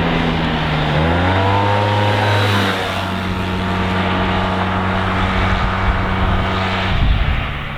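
Yamaha TMAX 530 SX maxi-scooter's parallel-twin engine with its stock exhaust, running loud: the pitch dips and climbs back within the first second or so, then holds steady.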